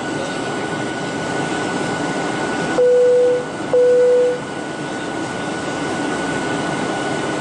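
Steady cabin drone of a Boeing 737-900ER airliner in flight, engine and airflow noise heard from a window seat. About three seconds in, two identical chime tones at the same pitch sound one after the other, each lasting under a second: the cabin chime system.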